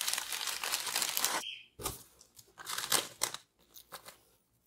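Shredded crinkle-paper packing fill and a plastic zip-top bag crackling and rustling as handfuls of the fill are stuffed into the bag. There are two spells of crackling with a dull thump between them, and it goes quiet near the end.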